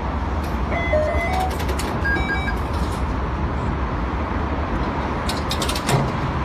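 Steady low rumble with a few short electronic beeps about one and two seconds in, and a brief cluster of clicks near the end.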